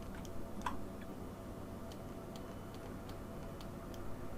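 Faint, irregular clicks from a computer keyboard and mouse, a few at a time, over a low steady hum.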